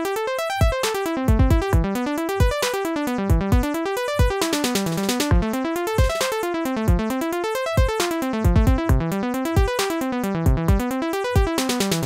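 Logic Pro's Retro Synth driven by the Arpeggiator, playing rapid 32nd-note arpeggios that run up and down over two octaves on a latched chord. The chord changes partway through, and a drum loop's kick thumps underneath.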